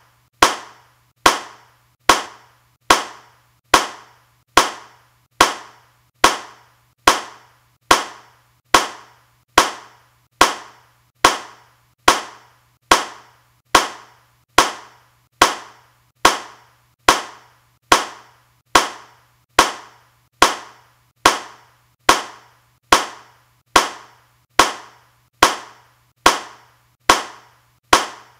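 A single hand clap repeated at a steady, even pace of a little more than one clap a second, each clap identical, sharp and quickly fading. A faint low hum runs underneath.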